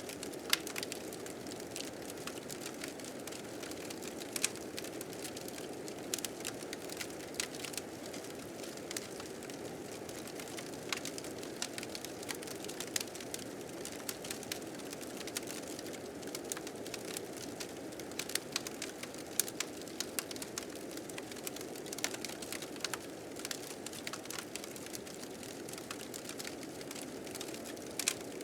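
Wood fire crackling with frequent sharp pops and snaps, over a steady low rush of blizzard wind.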